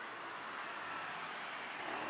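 City street ambience: a steady hiss of traffic and general background noise.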